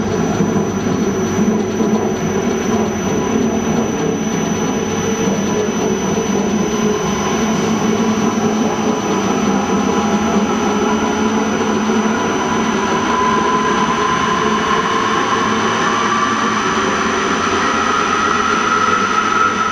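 Industrial centrifugal fan and its electric drive motor running under test: a loud, steady rush of air and machine hum. Through the second half a whine slowly rises in pitch.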